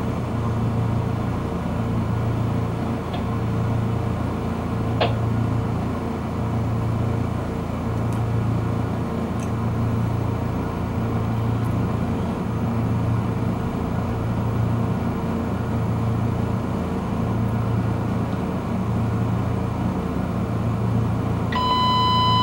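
Fire engine pumper idling in the apparatus bay: a steady rumble with a low throb that pulses about once a second. A single knock comes about five seconds in, and near the end an electronic alert tone beeps for about a second and a half.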